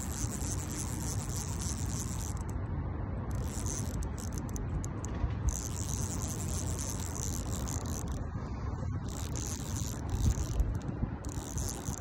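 Rustling and scraping of hand-held fly line and rod being worked, with a steady high chirring of night insects above it. A couple of louder knocks come about ten seconds in.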